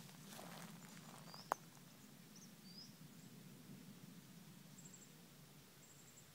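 Faint birds calling in a pine plantation: short high chirps every second or so, with two brief high trills near the end, over a low steady hum. One sharp click about a second and a half in.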